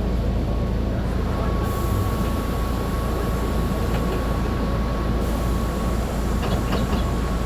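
Mercedes-Benz O500UA articulated bus's diesel engine running with a steady low rumble, and a thin steady high whine joining about a second in.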